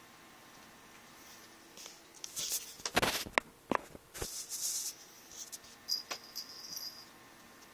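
Pillows and bedding rustling and a few soft knocks as a kitten pounces and scrambles on the bed; the loudest knock comes about three seconds in, after a quiet start.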